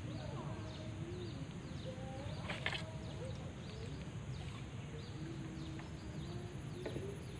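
Birds calling: many short, falling chirps and a few longer, wavering tones, over a steady low rumble.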